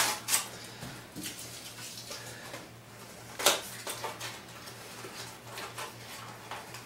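Fingers picking and peeling at the tape and plastic packaging of a small package of darts: scattered small clicks and crinkles, with louder clicks right at the start and about three and a half seconds in.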